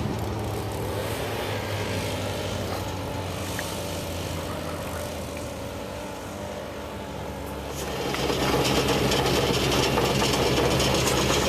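Vermeer BC-1500 wood chipper's diesel engine running steadily. It eases off slightly, then grows louder and rougher about eight seconds in.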